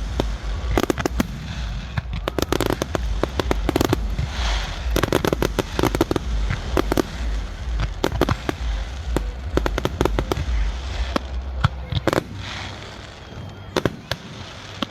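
Fireworks display going off: rapid clusters of sharp cracks and pops over a steady low rumble, thinning out near the end.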